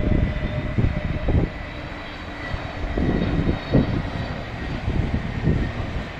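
Jet engines of an Airbus A320-family airliner on final approach with its gear down: a low, steady rumble with a faint high whine. Gusts of wind buffet the microphone over it.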